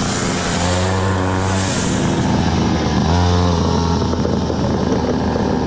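Small engine of a child's go-kart running close by, growing louder in two spells as the throttle is opened, about half a second in and again about three seconds in, with wind rushing over the microphone.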